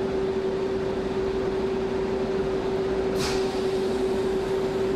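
Factory machinery running with a steady hum and one constant mid-pitched tone, with a short hiss about three seconds in.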